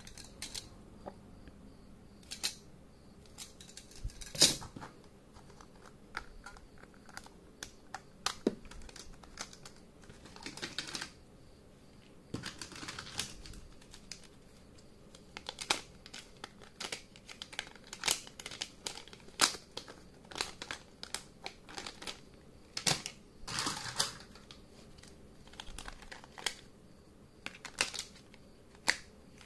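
Pink Plarail plastic toy train track pieces clicking and knocking together as they are handled and stacked, irregular clicks with short scraping stretches in between.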